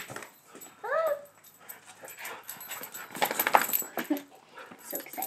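Dog giving one short, high whine about a second in, with a louder burst of rustling and scuffling noise around three seconds in.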